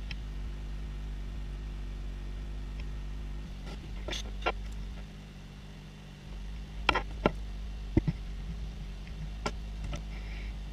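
Steady low electrical hum with about six short, light clicks scattered through the middle and later part.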